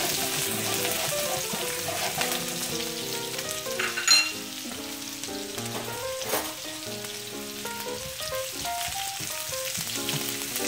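Chopped onion and cumin seeds sizzling steadily in hot ghee in a frying pan, with two sharp knocks about four and six seconds in. A soft background melody of held notes plays over it.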